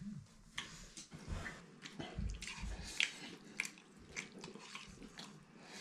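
Scattered quiet clinks and scrapes of spoons against a wok and steel bowls while people eat, a small tap every half second or so.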